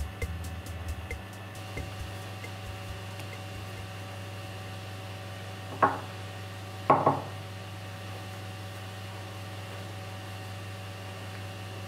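Two sharp knocks of metal hand-plane parts against the workbench, about a second apart near the middle, the second a quick double, over a steady low electrical hum. Background music fades out in the first two seconds.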